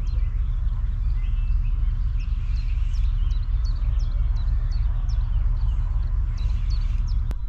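Wind buffeting the microphone with a steady low rumble, while a small bird repeats short, high chirps about twice a second.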